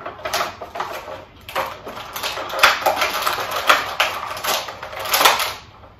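Clear plastic action-figure packaging crinkling and crackling as it is handled, in an irregular run of short rustles.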